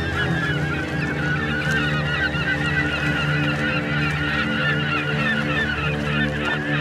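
A large flock of waterfowl calling all at once: a dense, unbroken chorus of short, overlapping honking calls. A steady low drone of held tones runs underneath.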